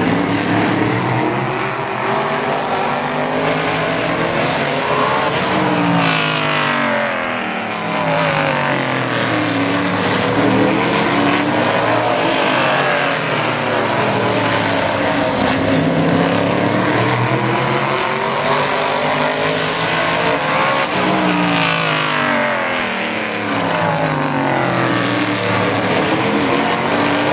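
Stock car engines running laps on a short oval track, their pitch climbing as they accelerate and falling away as they pass and brake, over and over, about every seven or eight seconds.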